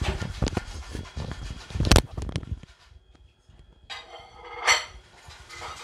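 Clatter and knocks of things being handled and set down on a stone kitchen countertop, with one loud thump about two seconds in. After a short quiet, a brief noisy sound rises and peaks about a second later.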